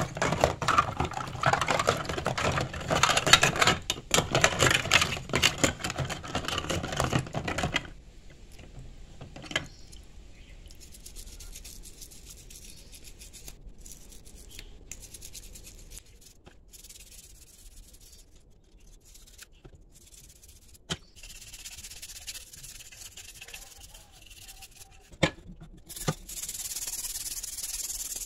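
Toothbrush scrubbing plastic speaker housings, rings and metal mesh grilles in a tub of soapy water, with the parts handled and knocked against each other. A dense, loud scrubbing for the first several seconds gives way to quieter brushing with scattered light knocks, and a steady bristly hiss near the end.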